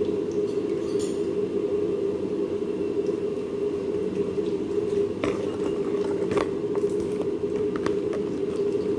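A steady machine hum, with a few light knocks and clicks about five to six and a half seconds in.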